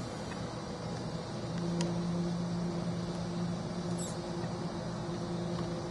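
Steady low hum of a machine or fan, a little louder in the first half, with a couple of faint small clicks.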